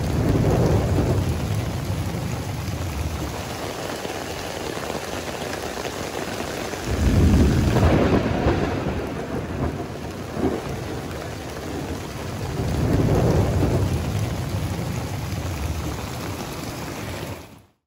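Heavy rain falling steadily, heard from under an RV awning, with low rumbles of thunder swelling three times, the loudest about seven seconds in.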